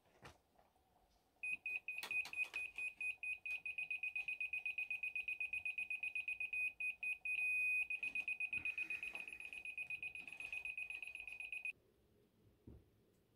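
Laser level receiver beeping fast at one high pitch for about ten seconds. A little past the middle it briefly holds a steady tone, which on such receivers marks the on-grade height, before going back to fast beeps and stopping suddenly. A few light knocks come near the start.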